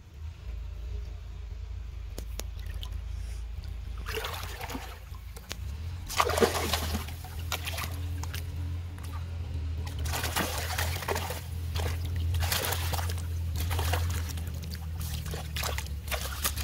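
Pond water splashing and sloshing as a cast net with fish in it is hauled up through shallow water. The splashes come in bursts from about four seconds in, the loudest a couple of seconds later, over a steady low hum.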